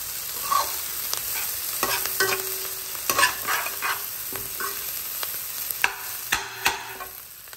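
Diced red onions sizzling in oil in an aluminium pan while a metal utensil stirs and scrapes them across the pan bottom, with irregular scraping strokes and clinks over a steady frying hiss.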